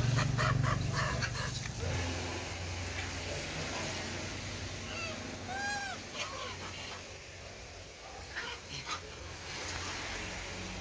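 A single short animal call that rises and falls in pitch about halfway through, over a steady low hum, with scattered clicks and taps early on and again near the end.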